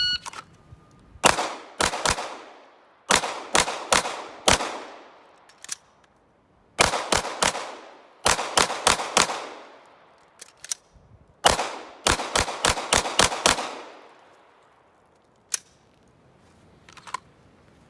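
A shot timer's start beep, then a handgun firing 21 shots in quick groups over about twelve seconds. The shots stop twice for a few seconds while empty magazines are swapped.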